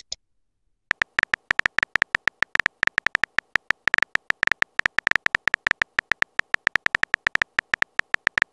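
Phone keyboard tap sound effect clicking rapidly, about eight taps a second, as a chat message is typed out. A short blip at the very start, then the taps begin about a second in and stop just before the end.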